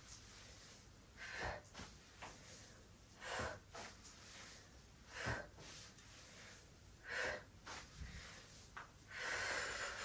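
Faint, sharp breaths from a woman exercising, about one every two seconds, as she lifts and circles alternate knees in a hip-opener warm-up, with soft thuds of her trainers setting down on the mat.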